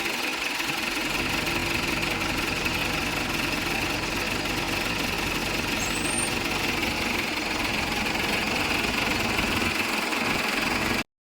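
Diesel engine of heavy earthmoving machinery running steadily. It cuts off suddenly near the end.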